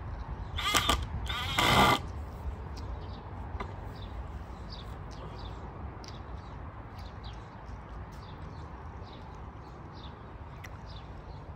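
Cordless drill driving screws into a wooden frame in two short bursts about a second apart. Birds chirp faintly in the background.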